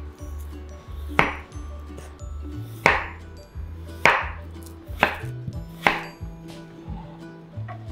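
Ceramic kitchen knife cutting a peeled potato into chunks on a wooden cutting board: five sharp knocks of the blade reaching the board, about a second apart.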